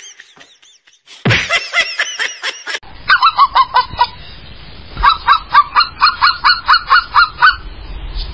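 Toy robot dog giving a fast run of short, honking electronic yaps, about four or five a second, with faint clicks. A few short animal calls come before it in the first seconds.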